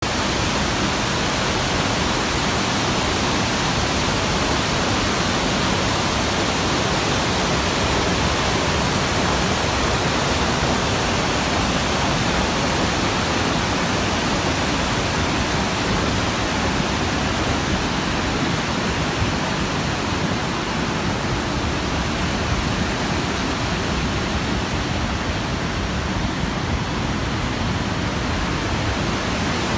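Montmorency Falls, a large waterfall, rushing with a steady, even noise.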